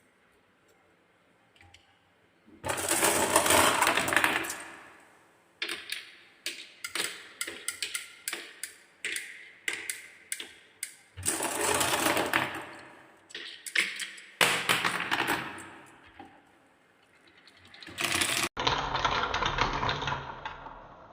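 Balls rolling and clattering down a wooden marble run, with long rattling rolls broken by bursts of quick clicks and clacks. Near the end a sudden cut brings in a steadier rushing noise.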